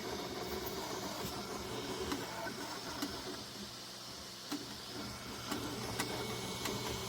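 Creality Ender 3 V3 SE FDM 3D printer running mid-print: steady fan and stepper-motor whir with light ticks now and then.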